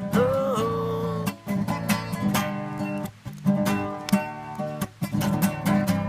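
Acoustic guitar strummed in a steady rhythm, an instrumental break between verses of a song. A held sung note dies away about a second in.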